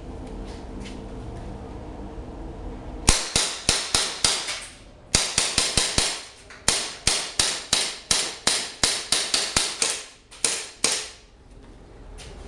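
Full-metal HFC M9-style airsoft pistol fired semi-auto in a long string of sharp cracks, about three a second, broken by a few short pauses; the firing starts about three seconds in and stops near the end.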